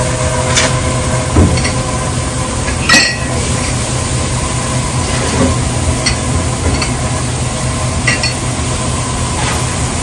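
Dishes being rinsed at a restaurant sink: running water hisses steadily while glassware and dishes clink and knock now and then, loudest about three seconds in, over a steady low hum.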